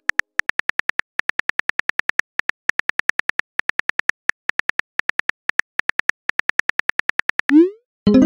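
Phone keyboard typing sound effect: quick, even key clicks, about six a second, as a message is typed. Near the end a short rising whoosh as the message is sent, followed by a brief louder tone.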